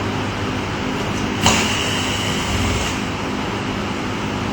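A single sharp metallic click about a second and a half in, with a brief ringing after it, as the fixing screw is taken out of a window's handle. A steady hum runs underneath.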